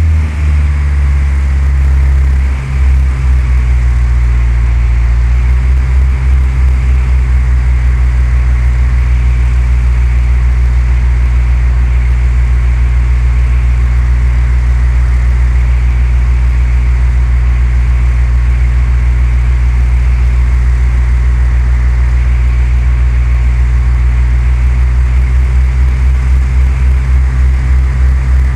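Cessna 172's piston engine and propeller droning loudly and steadily; the pitch shifts slightly in the first few seconds, then holds.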